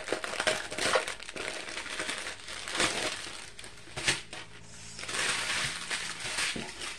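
Clear plastic packaging and small bags of diamond painting drills crinkling and rustling in the hands as they are handled, on and off throughout.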